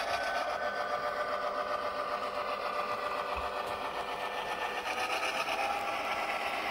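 Athearn HO-scale GP7 diesel model's Tsunami2 sound decoder playing a steady diesel engine running sound through its small onboard speaker, over the fast rolling clatter of model hopper cars on the track.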